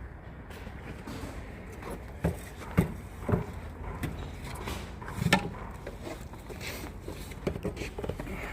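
A few irregular knocks and clatters over a low steady background, the loudest about two to three seconds in and again around five seconds.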